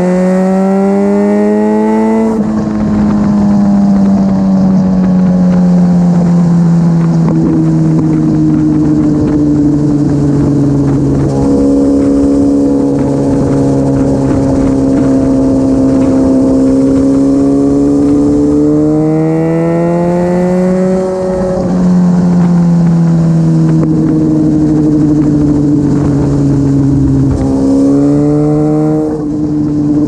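Suzuki GSX-R1000 K8's inline-four running at motorway speed through a decatted Cobra twin exhaust, with wind rushing over the helmet mic. The revs climb and drop sharply on a quick upshift about two seconds in, sag slowly, hold a steady cruise, then pull up again with further upshifts about twenty-one seconds in and near the end.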